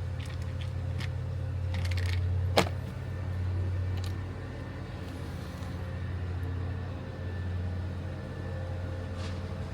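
Steady low mechanical hum, like a motor or engine running, with a sharp click about two and a half seconds in and a few lighter clinks of tools or metal parts.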